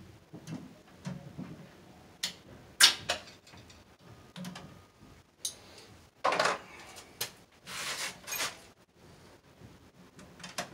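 Irregular clicks, taps and short scraping rustles of electrical wire and hand tools being worked inside a metal breaker sub panel, with the sharpest knock about three seconds in.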